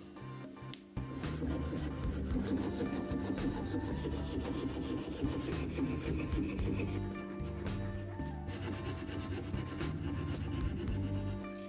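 Hand fret saw with a thin blade cutting through a thin slice of wood in fast back-and-forth rasping strokes, starting about a second in.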